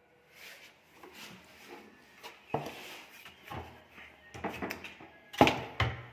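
Irregular knocks and clatter from work on a wooden kitchen sink cabinet door, with the loudest two knocks near the end.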